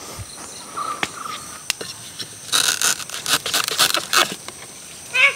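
A knife cutting through taro stalks at the base, a quick run of crisp slicing and leaf rustling from about halfway in that lasts a couple of seconds. Underneath is a steady high insect drone.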